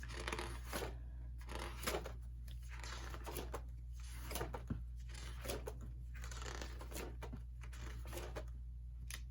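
Pages of an album photo book being turned one after another: a run of short paper rustles and flaps, over a steady low hum.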